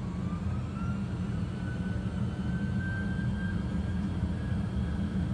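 Simulated Boeing 737NG jet engines spooling up to takeoff thrust: a whine rising in pitch that levels off about three seconds in, over a steady low rumble of the takeoff roll.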